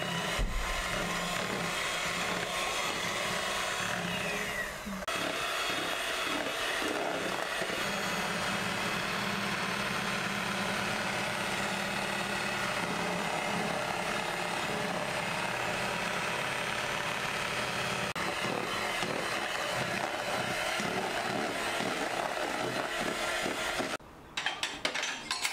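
Electric hand mixer running steadily, its beaters whipping cream in a plastic bowl. It stops near the end, and a few light clicks of a spatula follow.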